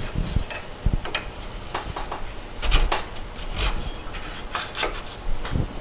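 Irregular metal clicks, taps and scraping as Porsche 912 pedal cluster parts are handled and fitted together, a tube being worked into its bushings.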